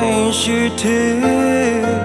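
Burmese pop song: a male voice sings held notes over instrumental backing with a bass line.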